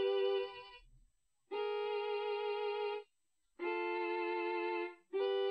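Music: the same held keyboard chord, steady and unchanging in pitch, sounded again and again in separate blocks of about a second and a half with short silent gaps between. The first one dies away just after the start and three more follow.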